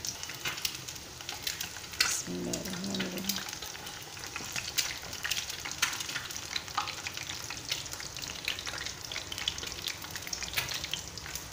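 Dumplings deep-frying in hot oil in a small pan: a steady sizzle with constant crackling pops of spattering oil. A few sharper clicks come as metal tongs turn the dumplings against the pan.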